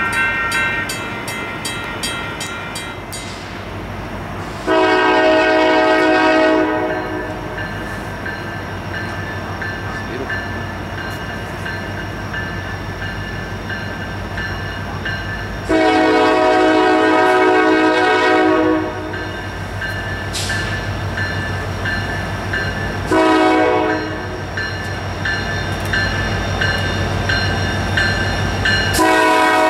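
A grade-crossing bell dings rapidly for about the first three seconds and then stops. An approaching FEC SD70M-2 diesel locomotive then sounds its air horn in the grade-crossing pattern: two long blasts, one short, and a final long blast starting near the end. The diesel's low rumble grows underneath.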